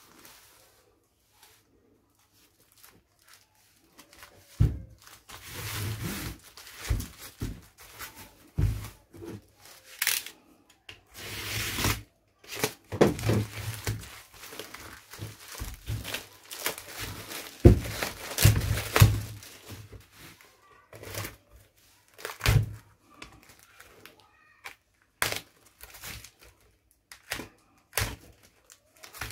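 A parcel being torn open by hand: plastic mailer bag and packing tape ripping, plastic and cardboard crinkling, with irregular thumps as the package knocks against the bench. It starts about four seconds in and goes on in uneven bursts; near the end a utility knife slits the cardboard box.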